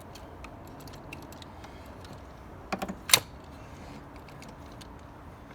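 Light clicks and rattles of a part being fitted into place in a pickup's engine bay by hand. A couple of knocks come just under three seconds in, followed at once by one sharp clack.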